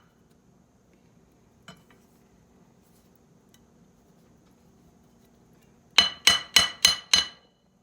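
Five quick metal-on-metal strikes with a ringing clang, about three a second, near the end, as a long-stuck part of an air compressor pump is knocked at to free it. A single faint click comes earlier.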